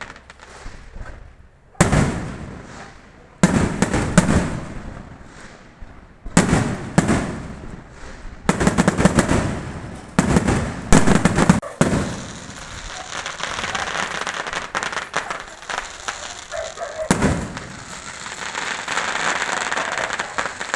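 Fireworks going off: a string of loud bangs, each trailing away, in the first half, then a dense, unbroken run of rapid crackling from about twelve seconds on.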